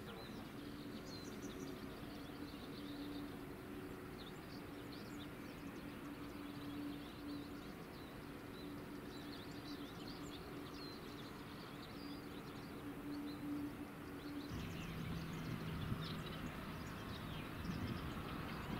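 Distant airliner jet engines turning at low taxi power: a steady hum, with small birds chirping over it. About three quarters of the way through the hum drops lower and a heavier rumble comes in from an Airbus A319 on the runway.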